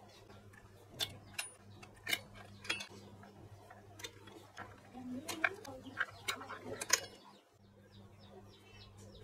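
Irregular clicks and taps of plastic wire-harness connectors and cables being handled and pulled from an amplifier circuit board, over a steady low hum. The clicks stop about two-thirds of the way through.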